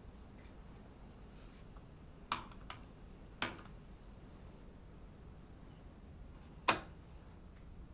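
Computer mouse clicking: four short, sharp clicks, two close together about two seconds in, one a second later, and the loudest near the end.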